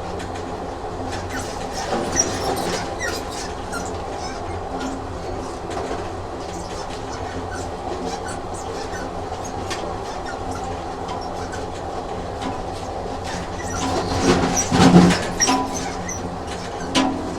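Train running on rails: a steady rumble and hum with scattered clicks, swelling louder for a moment about fourteen to fifteen seconds in.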